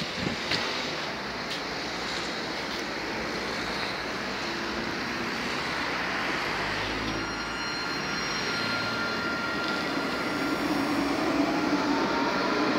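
Tram at a platform: a steady rail-vehicle rumble grows slowly louder, with thin electric tones coming in about halfway through. Over the last few seconds a motor whine rises in pitch.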